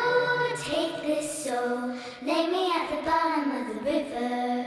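A song over the end credits: a high voice sings long, held, gliding notes in phrases, over instrumental backing.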